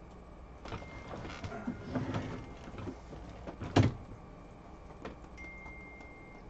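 Objects being handled and shifted on a tabletop: rustling and light clatter, with one sharp thump a little before four seconds in.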